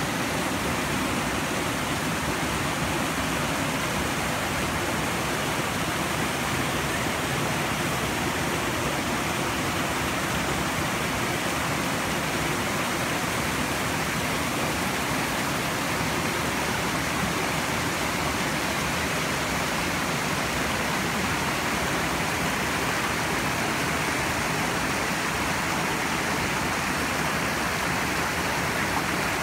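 Rain-swollen creek water rushing steadily: small waterfalls pouring over rock ledges into a pool and whitewater running between boulders, the creek running high after heavy rain.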